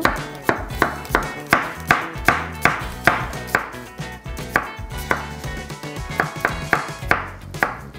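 Chef's knife slicing an onion thinly on a wooden cutting board: a steady run of cuts, each ending in a knock of the blade on the wood, roughly three a second.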